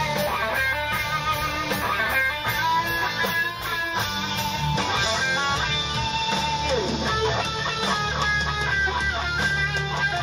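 Heavy hard-rock electric guitar riff played loud over studio monitors, with a downward pitch slide about seven seconds in.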